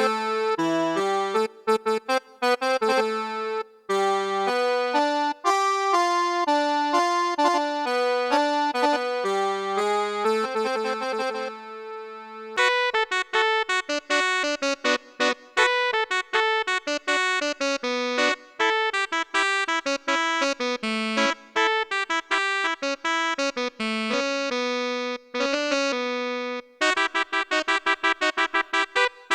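Electronic keyboard playing a cumbia melody line in quick, short notes, on its own with no drums or bass. About twelve seconds in, one held note fades out before the runs start again.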